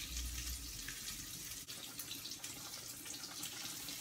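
Skin-on salmon fillets frying in hot grease in a pan, with a steady sizzle.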